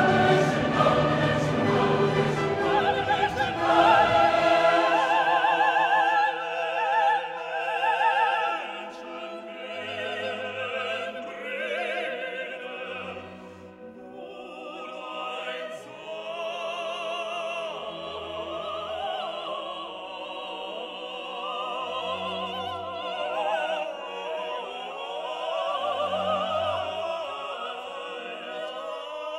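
Background music: a classical piece with an operatic singing voice, heavy with vibrato, over orchestral accompaniment. It is fuller and louder for the first few seconds, then softer, with a low bass note sounding every three to four seconds.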